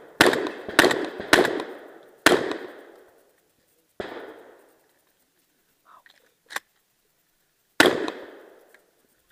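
Shotgun fired in a quick string of four loud shots in the first two and a half seconds, each followed by a long echoing tail, then a softer bang about four seconds in, a short sharp click, and one more loud shotgun shot near the end.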